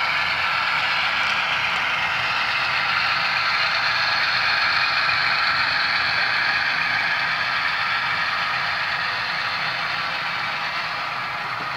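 HO-scale model freight cars rolling past on the track: a steady rolling noise of small metal wheels on the rails, swelling slightly mid-way and easing off near the end.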